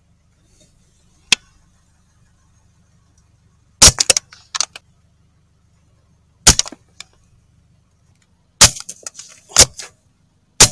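Sharp cracks of a CZ 515T .22 LR rifle firing CCI 40 gr subsonic rounds: a small click about a second in, then five loud reports spaced a second or two apart, each followed by quick lighter clicks, over a faint steady low hum.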